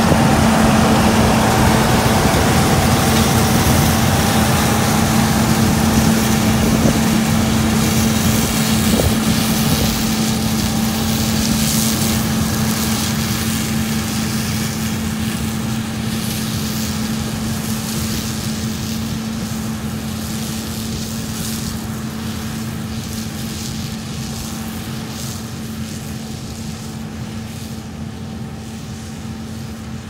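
A combine harvester running steadily while it threshes soybeans: an even engine drone with a constant low hum, slowly growing quieter, with wind noise on the microphone.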